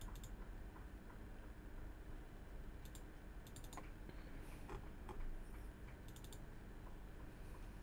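Faint computer mouse clicking: several small quick clusters of clicks, like double-clicks, a second or two apart, over low room noise.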